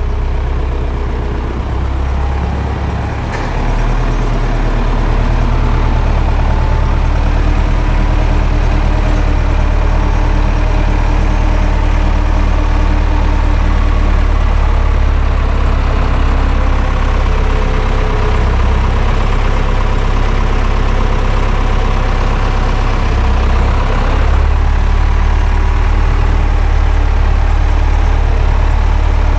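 Zetor 7011 tractor's four-cylinder diesel engine running steadily with a deep rumble, getting louder about four seconds in.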